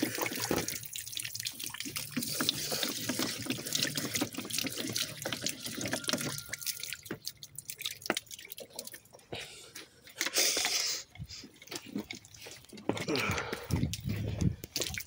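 Water dripping and trickling from an outdoor spigot and garden hose as the spigot is shut off, with many small knocks from handling the tap and hose. A brief hiss comes about ten seconds in.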